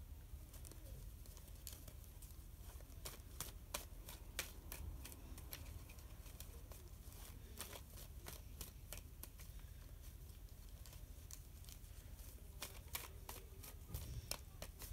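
Tarot deck being shuffled by hand: faint clicks and slaps of cards, coming in two flurries, over a steady low hum.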